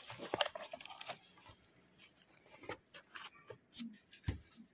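Handling noise from unboxing a portable voice amplifier: rustling and a quick run of clicks in the first second, then scattered taps as the speaker is moved in its cardboard box, with a single louder thump near the end.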